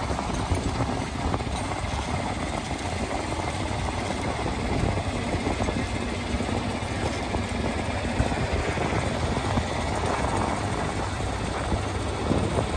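Farm tractor engine running steadily as it tows a hay wagon along a field track.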